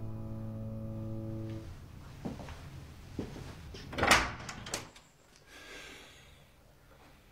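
Background music holding a sustained chord that stops about a second and a half in. A few soft knocks follow, then a sharp clatter of a door handle and latch about four seconds in, with a couple of lighter clicks after it.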